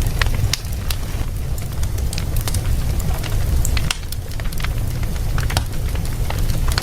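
Wood fire burning in a fireplace: frequent sharp, irregular crackles and pops from the burning wood over a steady low rumble of the flames.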